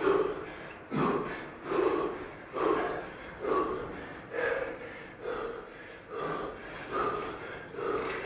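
A man breathing hard under physical strain, with a loud, even exhalation about once a second.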